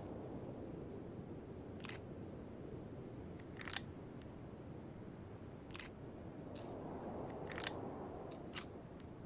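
A few light, sharp clicks, about six scattered irregularly, over a faint steady background rumble and hiss.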